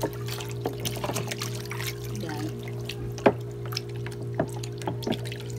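Water sloshing and splashing as a hand swishes a bar of Dove soap around a plastic basin of warm water to lather it. The splashes come irregularly, the sharpest one about three seconds in.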